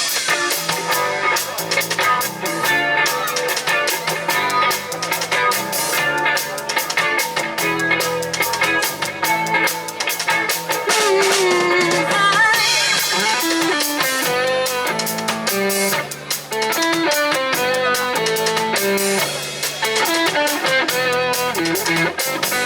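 Live rock band playing an instrumental passage with no singing: a melody, most likely on electric guitar, over a drum kit and a bass line.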